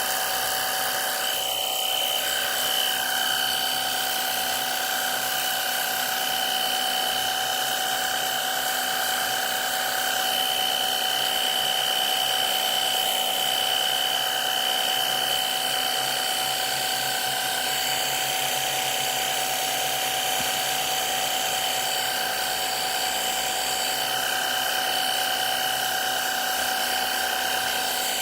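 Battery-powered jet washer running steadily, its motor and pump whining at a high, even pitch over the hiss of the water spray.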